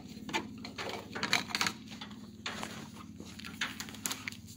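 Irregular clicks, knocks and rustling as an orange extension cord is pulled out from among tools and equipment on a garage floor, over a steady low hum.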